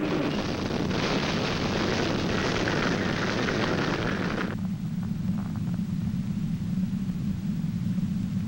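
Tornado wind: a loud rushing noise that drops about four and a half seconds in to a steady low rumble.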